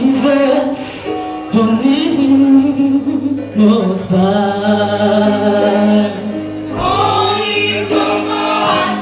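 Gospel choir singing, a woman's voice leading on microphone with other voices holding notes in harmony beneath.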